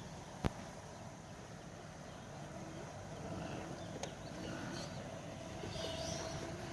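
Steady background noise with a sharp knock about half a second in and a fainter click near four seconds.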